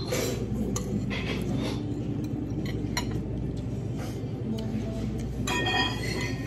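Metal spoon and fork clinking against a plate and serving bowls as someone eats: a few separate light clinks, with a brighter ringing clink near the end, over a steady low hum.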